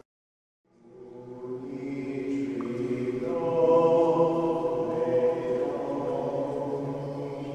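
Voices chanting in unison or as a choir, fading in after a moment of silence and swelling to their loudest about halfway through, held on long sustained notes.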